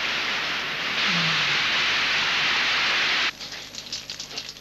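A steady rushing hiss like rain, with a short low falling tone about a second in. The hiss cuts off suddenly a little past three seconds, leaving faint scattered ticks.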